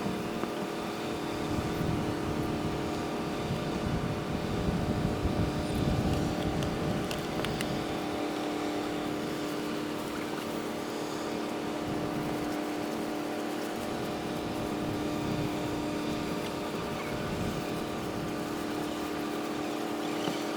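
Harbour ambience played back at five times speed: a steady mechanical hum of several fixed tones, typical of boat engines, under a low wind rumble on the microphone that swells a few seconds in and again past the middle.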